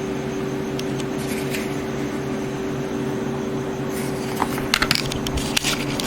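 Steady fan hum, with a few faint clicks early on and a cluster of small sharp clicks and rattles from about four seconds in, like a small plastic device being handled and its buttons pressed.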